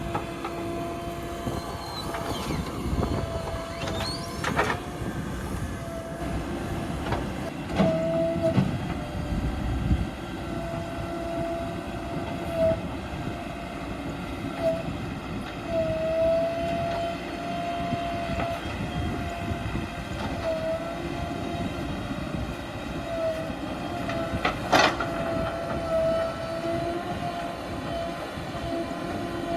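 JCB 3DX backhoe loader's diesel engine running under working load with a steady whine, while it digs and loads murum. A few sharp knocks and clatters of the bucket and stones break in, the loudest about 25 seconds in.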